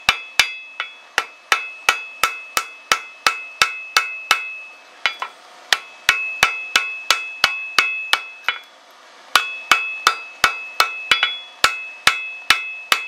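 Light hammer blows on white-hot steel over an anvil, about two to three a second, with the anvil ringing between blows, in three runs broken by two short pauses. These are the first light taps that set a forge weld in a tomahawk head folded from a horseshoe rasp.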